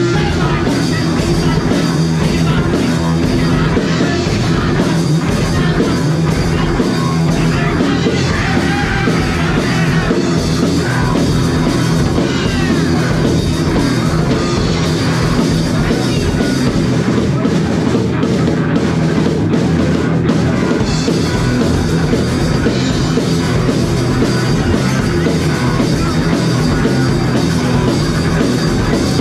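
A rock band playing live and loud: electric guitars, bass guitar and drum kit together, heard through a small action camera's microphone in the room.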